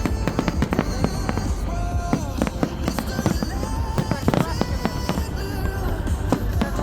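Fireworks going off in a rapid, continuous barrage of bangs and crackles, over music.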